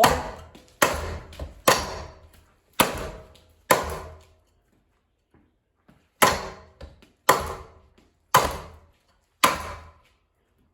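Nine sharp blows against a ceiling fan with plastic blades, each ringing out briefly: five about a second apart, a short pause, then four more at the same pace.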